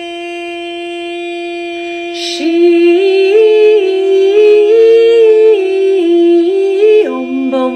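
A voice drawing out a very long "sheesh", held as one steady sung note. A couple of seconds in, a second voice joins, singing a melody that steps up and down over the held note, and about seven seconds in the pitch drops lower.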